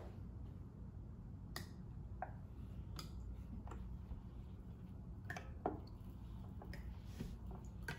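Faint, scattered small clicks and taps, irregular and roughly one a second, over a low steady hum: hands unwrapping fizzing tablets and dropping them into a tall glass of water and oil.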